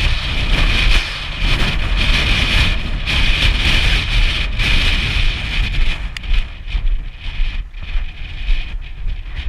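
Wind buffeting the camera's microphone: a steady low rumble with a hiss on top that eases about six seconds in.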